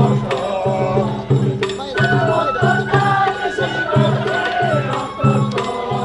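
Japanese festival float hayashi music: a wavering melody, likely the shinobue bamboo flute, over a steady beat of taiko drums.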